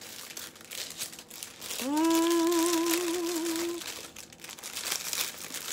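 Clear plastic jewelry packaging crinkling and rustling as it is worked open by hand. About two seconds in, a hummed note rises and holds for about two seconds with a slight wobble, louder than the crinkling.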